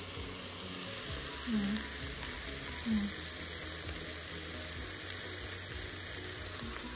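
Chopped onions and peppers sizzling on sauté in an Instant Pot's stainless steel inner pot, a steady frying hiss. Two brief low sounds break in about one and a half and three seconds in.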